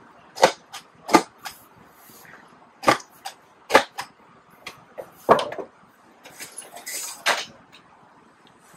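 A cardboard shipping box being closed and sealed: a series of sharp thumps and knocks as the flaps are pressed and slapped down. Near the end comes a rasping run as packing tape is drawn off the tape dispenser and laid across the top.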